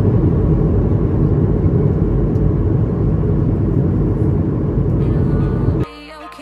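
Steady low cabin noise of a jet airliner in flight. It cuts off suddenly near the end as music starts.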